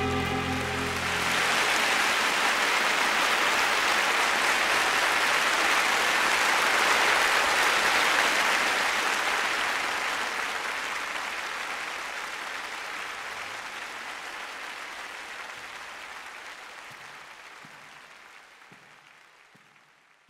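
Audience applauding as the last notes of the music die away; the clapping swells, holds, then fades slowly to silence.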